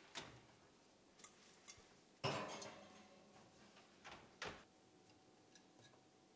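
A glass mixing bowl set onto a wire oven rack with a sharp clink about two seconds in, then the Bosch oven door swung shut with a clack a couple of seconds later. Faint clicks follow near the end as the oven's control dial is turned.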